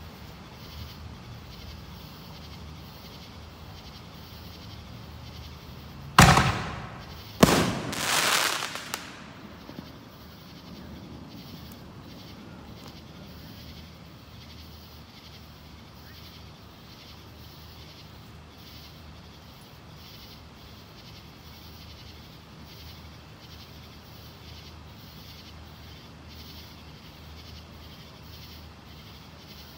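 Two loud fireworks bangs about a second apart, some six seconds in, the second trailing off in a crackle for a second or two. The rest is a faint, evenly pulsing background.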